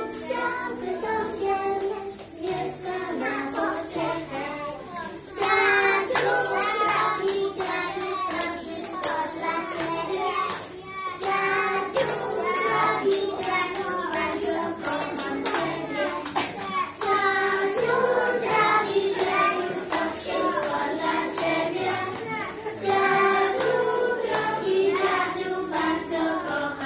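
A group of young children singing a song together along with a recorded backing track that has a steady beat.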